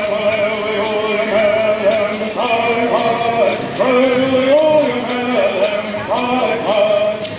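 Bird Singers singing a traditional Southern California Bird Song in unison, shaking gourd rattles in a steady beat. The sung phrases rise and break off and start again every few seconds.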